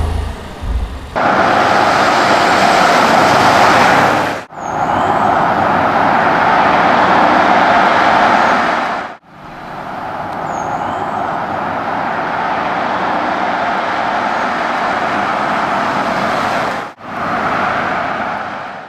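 Porsche Cayenne S driving at speed on a road: a steady rush of tyre and wind noise with no clear engine note. It breaks off suddenly three times, each time for a moment, and the last stretch fades near the end.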